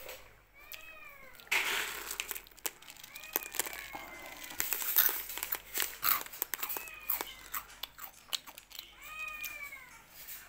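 A cat meowing four times, each call rising and falling in pitch, the second one drawn out longest. Scattered clicks and crunching noises come between the calls.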